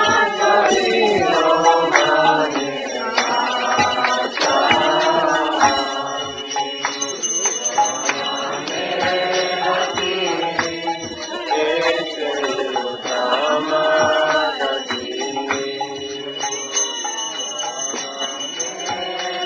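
Devotional chanting set to music: voices singing a mantra in a melodic, call-like line, with a steady high ringing above it.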